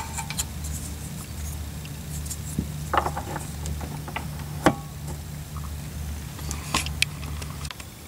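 Red plastic key being fitted and turned in a battery disconnect switch: rattles and sharp clicks, the loudest about halfway through as the switch is turned to connect the battery. A low hum runs underneath and stops shortly before the end.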